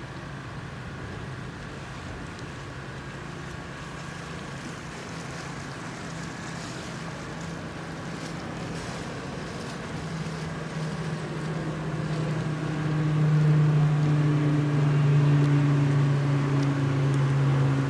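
A large engine's steady low hum, growing louder over the second half, over the rush of the flowing creek.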